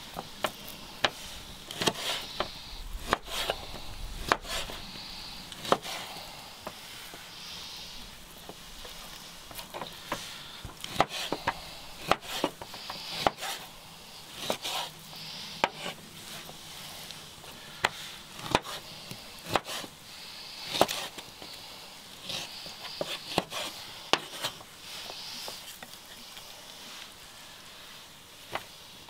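Knife chopping on a wooden cutting board: irregular sharp knocks, roughly one or two a second, with the scrape of the blade between strokes.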